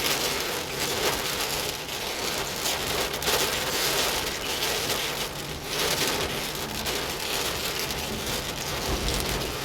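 Heavy rain pelting a car's windshield and roof, heard from inside the cabin while driving, a dense, steady wash of noise. A low rumble comes in near the end.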